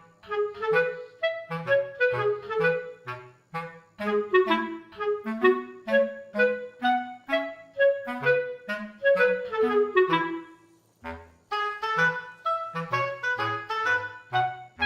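Background music: a lively melody of short, quick notes over a bass line, pausing briefly about eleven seconds in before starting again.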